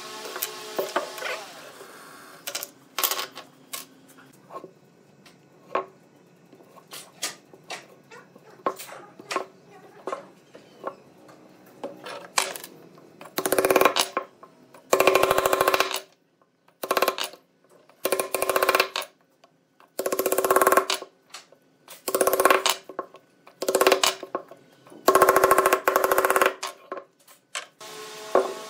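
Light knocks and clicks of wooden parts handled on a workbench. Then a run of about eight loud, rapid, ringing bursts as round wooden dowels are driven one after another into drilled holes in a round pine hub.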